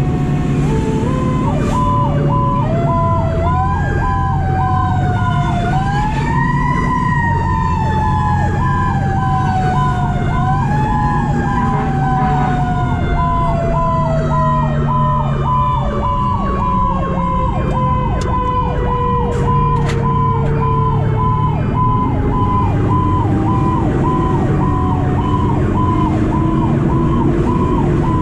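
Fire engine sirens: a Federal Q mechanical siren winds up in steps to a scream, then coasts slowly down and starts winding up again near the end. Under it, an electronic siren cycles rapidly about twice a second.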